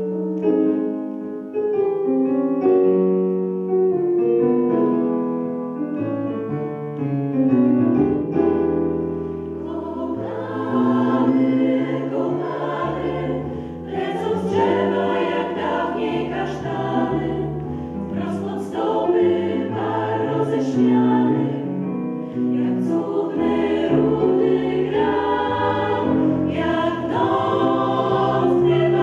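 Women's choir singing with piano accompaniment. The piano plays alone at first, and the voices come in about ten seconds in.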